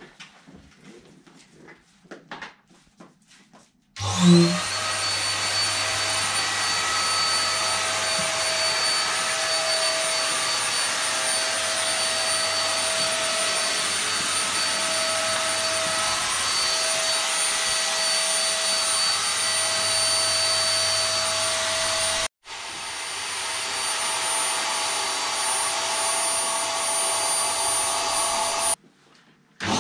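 Electric air pump inflating an inflatable PVC boat: after a few faint clicks it starts about four seconds in with a rising whine, then runs steadily as a loud rush of air with a high whine. It cuts off abruptly twice near the end and spins back up each time.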